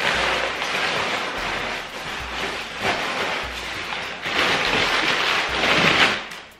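Cardboard shipping box being opened: a continuous loud rustling and tearing of cardboard and packing that swells several times and dies away near the end, over a low, steady music beat.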